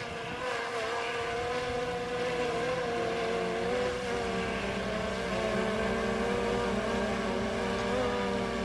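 Quadcopter drone in flight: its propellers give a steady high-pitched buzz whose pitch wavers slightly as it manoeuvres.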